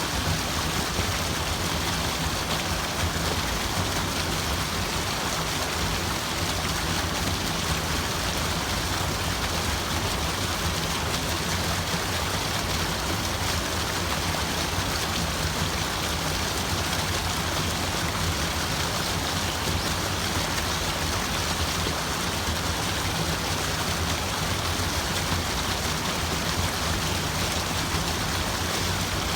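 Steady rushing water, an even unbroken wash of noise with no change in level.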